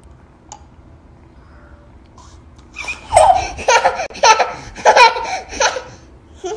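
A toddler laughing hard: faint at first, then about three seconds in a run of about six loud belly-laugh bursts, with one more near the end.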